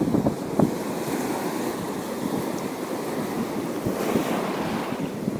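Wind buffeting the action camera's microphone over the wash of waves at the shore, steady, with a slight swell about four seconds in.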